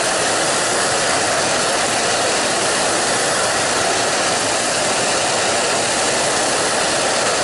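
Numatic Henry Petcare canister vacuum cleaner running, its suction motor making a loud, steady rush of air at an even level throughout.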